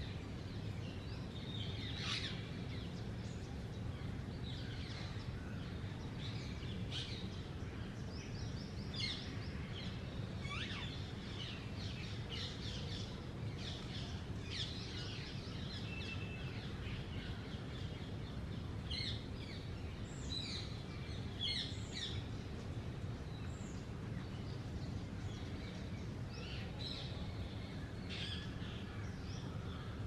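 Birds chirping and calling, with many short high chirps and a few quick runs of notes scattered throughout, over a steady low background rumble.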